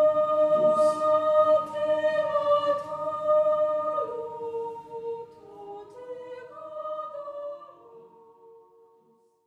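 Unaccompanied singing voices, choir-like, holding long notes. The pitch steps down about four seconds in, then a few shorter notes follow while it fades out to silence near the end.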